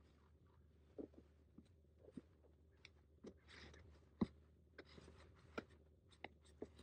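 Faint scattered creaks, rustles and knocks of a person climbing onto and settling down on a cardboard platform bed covered with a yoga mat, with one sharper thump a little after four seconds in.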